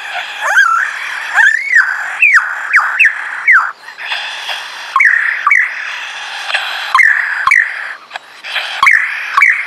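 Male lyrebird singing at close range: a run of loud looping notes that swoop sharply up and down, about two a second, over a rough buzzing sound.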